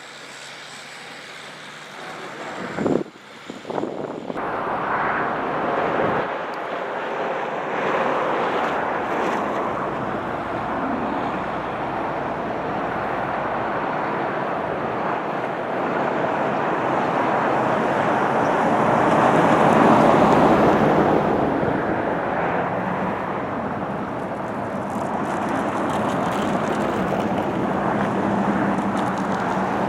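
Steady rushing noise of a vehicle with wind, after a single thump about three seconds in, swelling to its loudest about twenty seconds in.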